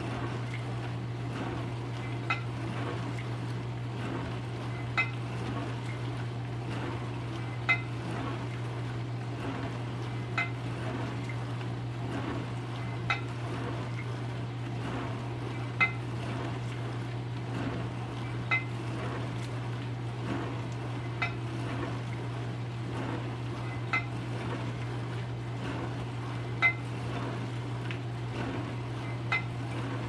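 Maytag dishwasher running: a steady motor hum under the rush of water spray, with plates inside clanging about every two and a half to three seconds in a regular rhythm.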